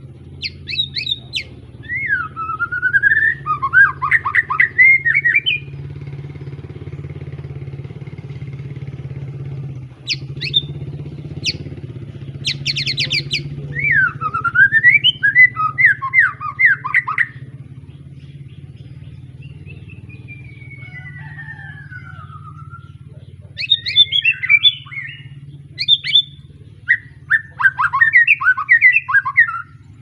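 A young white-rumped shama (murai batu), just past its spotted juvenile plumage, sings loudly in bursts of rapid, varied whistled phrases mixed with sharp high notes. There are three main bursts, with a fainter falling whistle in the middle. A steady low hum runs underneath.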